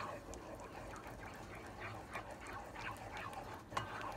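Thick beer batter being stirred briskly in an enamel pot, with wet slapping strokes about three times a second as lumps are worked out. A sharper knock near the end.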